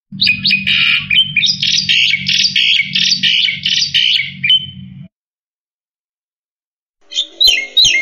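Black-winged myna (jalak putih) singing vigorously: a fast run of loud, harsh repeated notes lasting about five seconds, then a pause and another short burst near the end.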